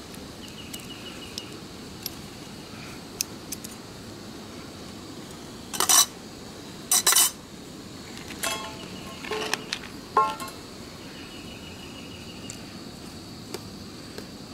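Metal utensil clinking and tapping against a stainless steel cook pot: a few sharp clicks around the middle, then several ringing taps, over the steady hiss of a canister gas stove burner. An insect trills briefly near the start and again near the end.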